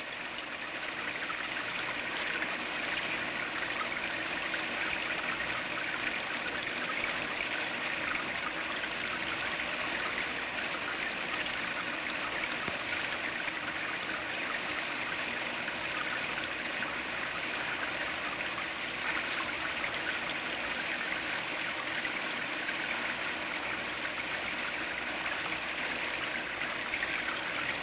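Steady rain falling, an even hiss of water with no distinct drops standing out. It fades in over the first second or so, then holds constant.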